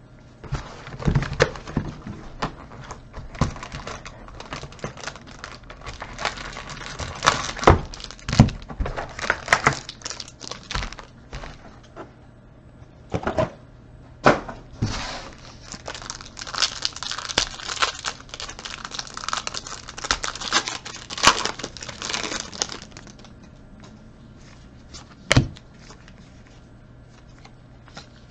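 Trading-card box being torn open and its foil-wrapped card packs handled: crinkling and rustling, with scattered knocks of cardboard against the table. The crinkling is densest as the packs come out, then dies down to a single knock a few seconds before the end.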